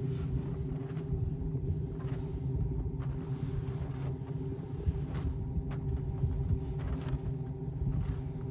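Steady low rumble of a sailboat underway, with a faint steady hum and a few brief soft knocks.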